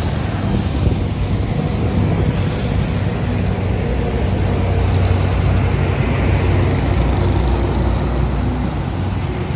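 Steady roadside traffic: motorbikes and cars running past, engine hum and tyre noise, with a rising whine about halfway through as one vehicle passes close.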